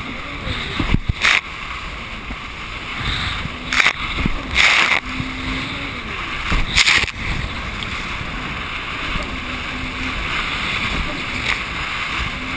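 Personal watercraft (jet ski) running through choppy sea: a steady rush of engine, wind and water, broken several times by short loud splashes as the hull hits the chop and spray strikes.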